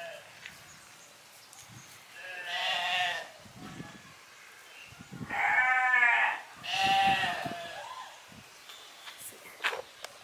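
Goat bleating, three drawn-out calls a couple of seconds apart.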